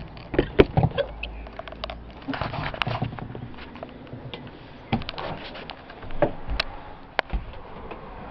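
Irregular footsteps, knocks and clicks of someone stepping up into a caravan and moving through it.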